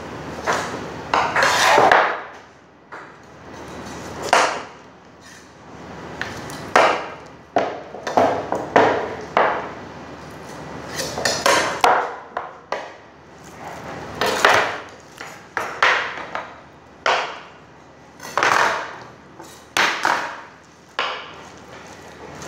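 Knife cutting and scraping through a raw lamb leg on a plastic cutting board: irregular knocks and scrapes of the blade against the board, with pieces of meat and bone set down on it.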